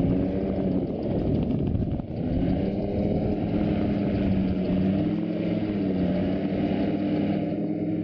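Gyrocopter engine and propeller running steadily in low flight, with wind noise over the open cockpit. The engine note dips briefly about two seconds in, then wavers slightly, and the sound cuts off suddenly at the end.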